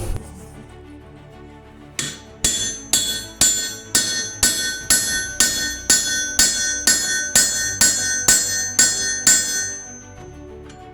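Hammer blows on rebar over a steel anvil at about two a second, each strike ringing like a bell. The hammering starts about two seconds in and stops near the end.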